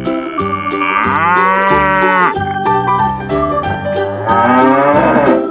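A cow mooing twice: one long moo about a second in and another near the end. Light children's background music with a steady beat plays underneath.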